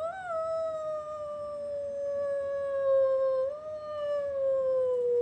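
Lakeland terrier howling one long, slowly falling note, with a small lift in pitch about three and a half seconds in.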